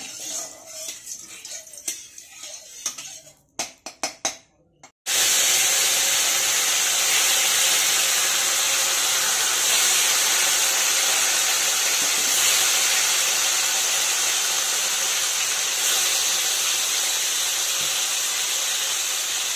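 Rohu fish steaks sizzling in hot mustard oil in a kadai: a loud, steady frying hiss that starts about five seconds in. Before it, a few light clicks.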